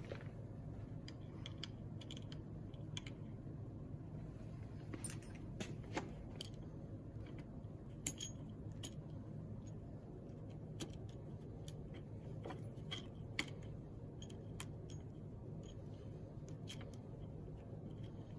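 Scattered small clicks and rattles of hands handling an electric scooter's brake lever and its spiral-wrapped brake cable, over a steady low background hum.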